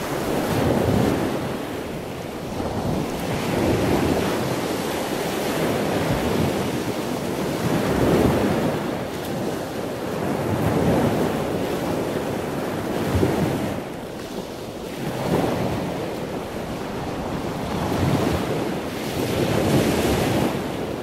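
Wind gusting across the microphone: a rushing noise that swells and eases every two or three seconds.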